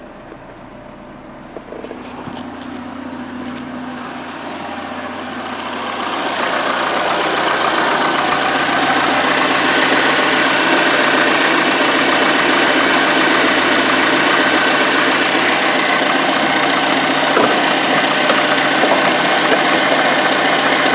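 Peugeot 307's 1.6 16-valve four-cylinder petrol engine idling steadily, with the newly fitted auxiliary belt driving the alternator and other pulleys. The sound grows louder about six seconds in as it is heard up close in the open engine bay, then holds steady.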